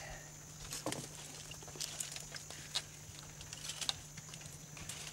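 Scattered small snaps and cracks of twigs and branches, with footsteps on a muddy bank, as a person clambers up through brush. A faint steady low hum runs underneath.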